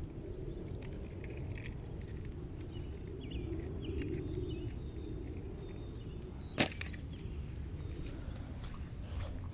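Low, uneven rustle of handling noise on a body-worn camera's microphone while a caught bass is held and weighed, with one sharp click about two-thirds of the way through.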